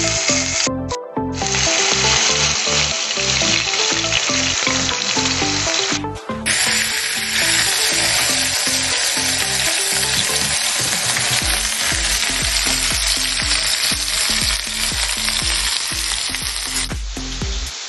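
Ground-beef smash burger patties sizzling as they fry in a frying pan, with background music playing over it. The sound drops out briefly about a second in and again around six seconds in.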